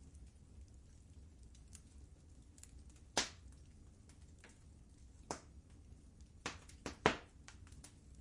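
Wood fire in a fireplace crackling, with scattered sharp pops; the loudest come about three seconds in and about seven seconds in, over a faint low rumble.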